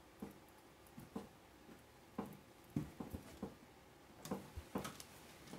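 Shelf brackets being pushed into holes in the side panel of a SteakAger cabinet: about ten light clicks and taps at uneven intervals as they seat.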